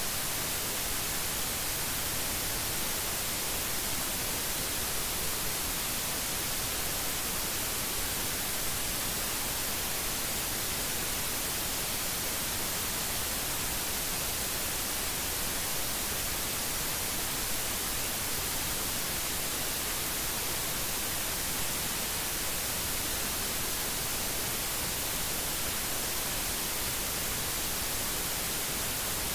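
Steady hiss of static, even and unchanging throughout, with no other sound on top of it.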